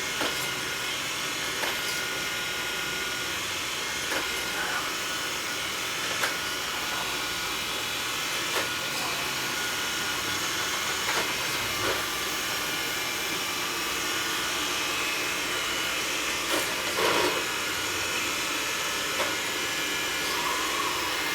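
Xiaomi Mi robot vacuum running steadily while cleaning: an even suction-fan rush with a thin high whine, broken by a few light knocks.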